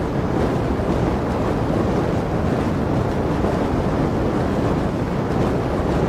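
Heavy flame burning with a steady rushing noise, mostly low in pitch, with small surges and no breaks.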